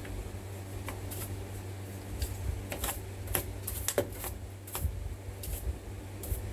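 Scattered light clicks and knocks of hand work on wooden joist blocking, irregular and a few per second, the sharpest about three to four seconds in, over a steady low hum.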